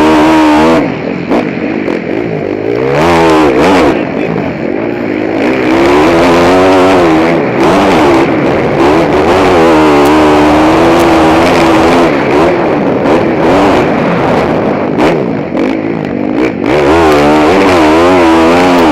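KTM Dungey Replica motocross bike's four-stroke engine, heard from the rider's helmet camera, revving hard and falling off again and again as the throttle opens and closes around the track, with a few brief lulls when the throttle is rolled off.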